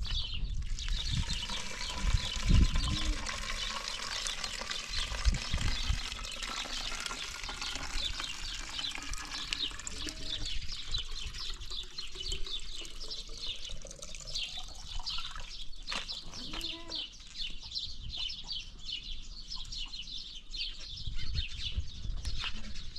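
Water trickling and splashing as it is poured from a plastic bottle over a hand and cloth. Dense bird chirping runs underneath, with a few low thumps in the first several seconds.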